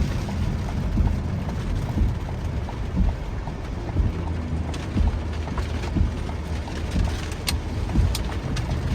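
Steady low rumble of a truck driving on wet roads, heard inside the cab, with rain tapping on the truck and a low thump about once a second.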